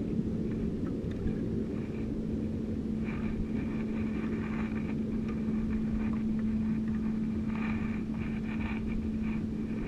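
A boat engine running steadily with an even hum, with light clicks and rustles over it around the middle and again near the end.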